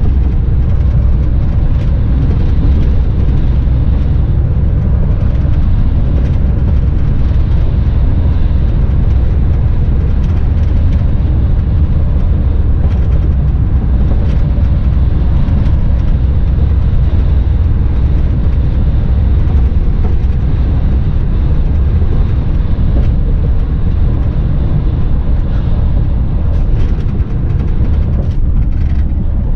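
Mercedes-Benz truck's diesel engine running steadily at cruise with tyre and road noise, a constant low rumble heard from inside the cab.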